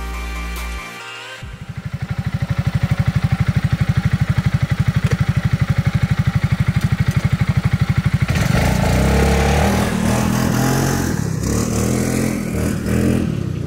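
ATV (quad bike) engine starting up about a second and a half in and idling with a fast, even pulsing beat, then revving up louder and rougher from about eight seconds in.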